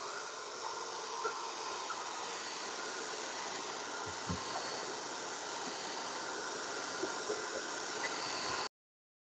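Steady hiss of background noise from an open microphone on a video call, with a few faint clicks and a low knock about four seconds in. It cuts off abruptly near the end to dead silence.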